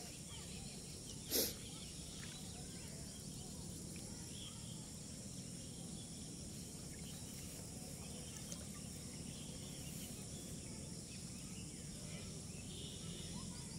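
Steady rural outdoor ambience with insects trilling continuously in the background. A single brief sharp noise stands out about a second and a half in.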